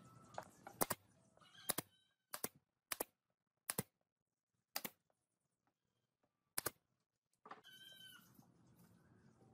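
Pneumatic brad nailer firing about seven times, one sharp shot every half second to two seconds, driving brads into the wood. Near the end, a short animal call.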